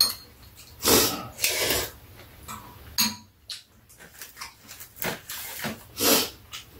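Metal spoons and chopsticks clinking and scraping against bowls during a home meal, in several separate short strokes with quiet gaps between.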